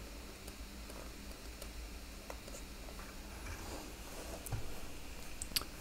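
Stylus writing on a drawing tablet: faint scattered ticks and light scratches of the pen tip against the surface as a word is handwritten, over a steady low hum.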